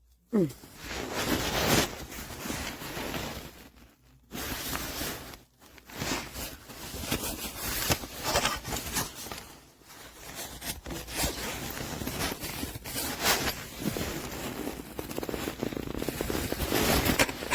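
Zippers on a laptop backpack being pulled open and shut again and again, a run of raspy zip strokes with brief pauses about four and five and a half seconds in.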